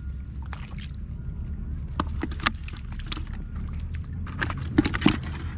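Irregular short splashes and slaps of water in shallow muddy floodwater, about eight of them, loudest twice near the end, over a steady low rumble.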